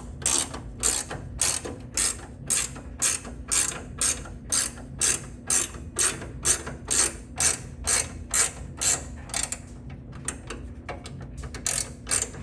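Ratchet clicking steadily, about two to three clicks a second, as the door hinge spring tool is backed out to release the spring. It pauses briefly near the end, then starts again.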